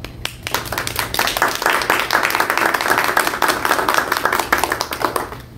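A roomful of people applauding: a few single claps at first, filling out into steady applause after about a second, then dying down near the end.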